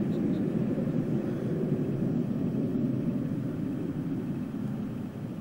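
Distant Panavia Tornado jet engines making a steady low rumble across the airfield, fading slightly toward the end.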